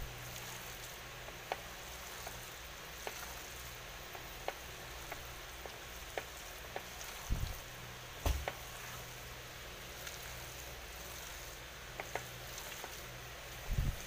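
Bare hands squeezing and kneading a wet ground-pork dumpling filling in a bowl: faint, irregular wet squelches and small clicks, with a few dull thumps about seven and eight seconds in and again near the end.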